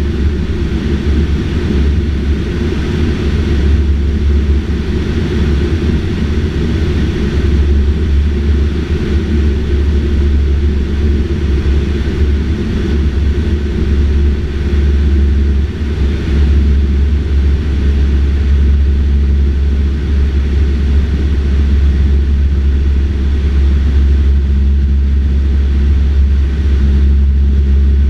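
Cessna 152's four-cylinder Lycoming O-235 engine and propeller droning steadily in flight, heard from inside the cabin.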